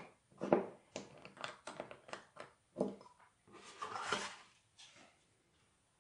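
A string of light clicks and taps from handling styrene model-kit parts and opening a small glass bottle of plastic cement. There is a short scraping rustle about four seconds in.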